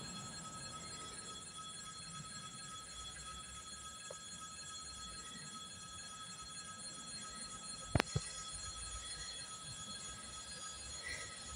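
Faint trackside background hiss under several thin, steady high-pitched tones, with two sharp clicks close together about eight seconds in. The approaching train is not yet clearly heard.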